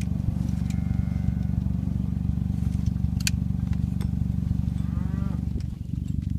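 Hereford cattle mooing twice, a long call about a second in and a shorter, bending call about five seconds in, over a steady low rumble, with a few sharp clicks.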